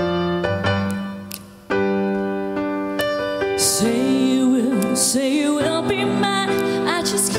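Electric keyboard playing sustained chords as an intro, with a short drop in level before the next chord; about halfway through, a woman starts singing over it into a handheld microphone.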